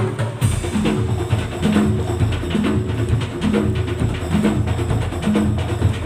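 Madurese tong-tong (daul) music: wooden slit drums and drums beat a fast, steady rhythm. A short low pitched figure repeats about once a second.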